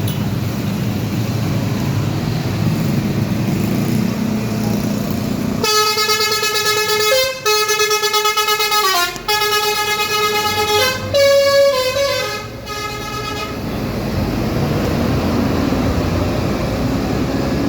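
A bus's Basuri 'telolet' musical air-horn set, a multi-trumpet roof horn, plays a short melody of stepping tones for about eight seconds. It breaks off and restarts several times over the engine and road noise of a passing bus.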